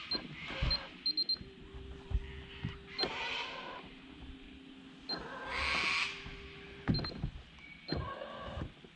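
Electric trolling motor whining at a steady pitch for about five seconds, then stopping about seven seconds in. Around it are a few knocks, two short rushing noises and several short high beeps.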